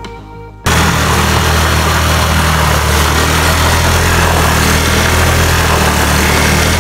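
Italika TRN150 scooter's GY6 150cc four-stroke single-cylinder engine running steadily at an even pitch, loud and with a heavy hiss over it. It cuts in abruptly under a second in, as soft music ends.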